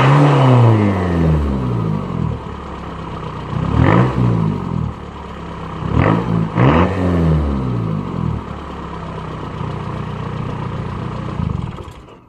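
Volkswagen Mk3 Jetta TDI's 1.9-litre turbodiesel engine, through a 2.5-inch exhaust, blipped up from idle about four times and falling back each time, then idling steadily until it stops near the end, with the turbo whistle on the revs.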